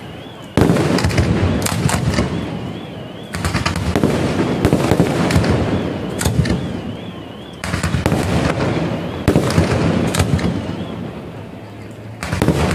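Aerial fireworks display: five loud shell detonations in quick succession, each followed by dense crackling that fades away.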